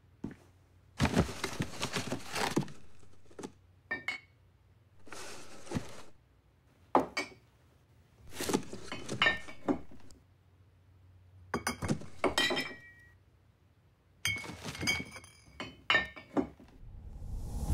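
Glass bottles clinking and knocking against one another in about six separate bursts with silence between them, some clinks ringing briefly.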